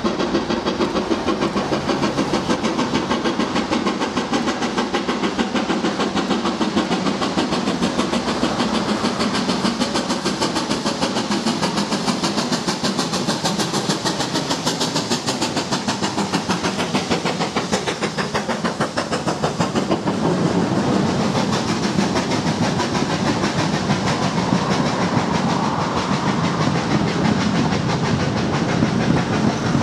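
A steam locomotive approaches and passes with rapid, regular exhaust beats. After about twenty seconds the beats give way to the steady rumble of its coaches rolling past on the rails.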